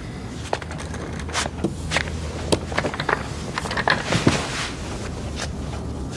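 Footsteps, then a leather office chair pulled out from a conference table and a man sitting down in it: a run of knocks, scrapes and clothing rustle, loudest about four seconds in, over a steady low room hum.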